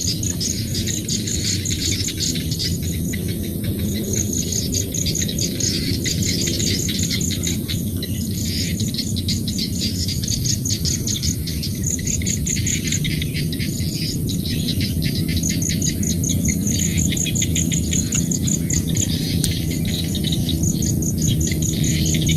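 Rice-field ambience: insects trilling in rapid pulsed runs, high-pitched and continuous, with birds chirping among them over a steady low drone.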